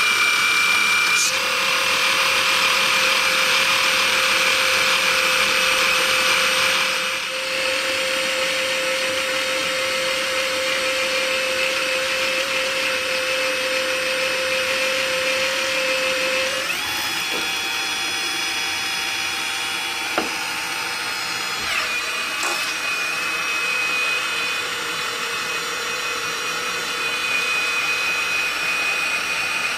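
Electric drive motor and hydraulic pump of a scale-model Volvo L220E wheel loader running with a steady whine. Its pitch shifts several times as the hydraulics are worked.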